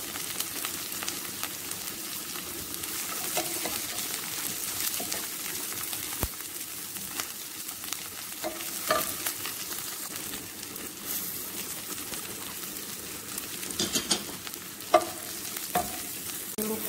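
Sliced shallots, garlic and green chillies sizzling steadily in hot oil in a nonstick frying pan, stirred with a wooden slotted spatula that knocks and scrapes against the pan now and then. A few sharper taps of the spatula come near the end.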